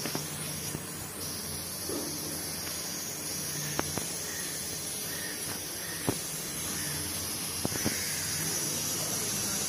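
Mustard seeds sizzling in hot oil in a kadai: a steady hiss with a few sharp pops as the seeds start to splutter.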